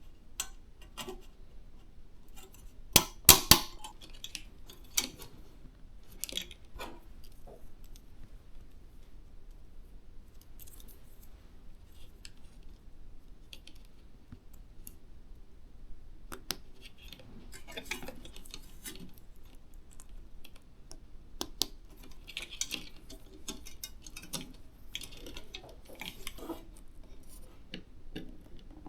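PC components being handled and fitted by hand: scattered small clicks, taps and rustles, the loudest a pair of sharp clicks about three seconds in.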